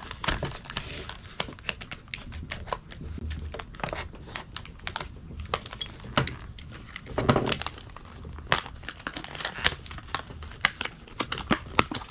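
Product packaging being opened by hand: irregular crinkling, crackling and tearing, with a louder rustle about seven seconds in.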